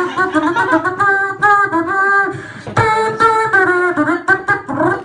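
A performer's voice singing a wordless tune in short held notes that slide between pitches, with clicking mouth percussion, as a vocal sound effect.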